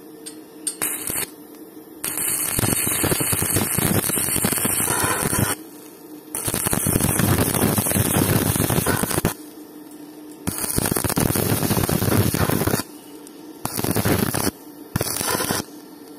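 Stick (SMAW) welding arc crackling on a thin steel pipe joint. There are two brief strikes about a second in, then three longer runs of two to four seconds each and two short runs near the end, with the arc broken off between them. A low steady hum remains in the pauses.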